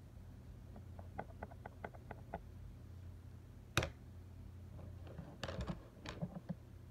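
Small wooden clicks and taps of coloured pencils being put down and picked out: a quick run of light clicks, one sharp knock about four seconds in, then another cluster of taps, over a steady low hum.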